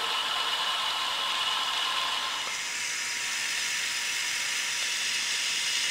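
Bridgeport milling machine running steadily, its end mill side-cutting the edge of a 7075 aluminum plate: an even whir and hiss with faint high tones.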